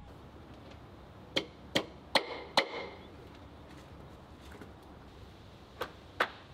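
Hammer strikes: four sharp knocks about 0.4 s apart, then two more near the end.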